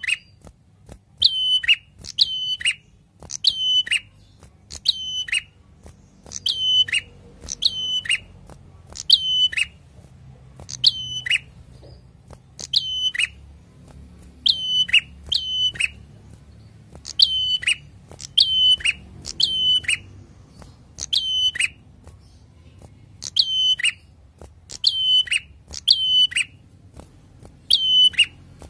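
Caged prenjak, a small rufous-capped songbird, calling loudly and repeatedly. Each note is a sharp, clear chirp that drops steeply in pitch, given about once a second and often in quick pairs or threes.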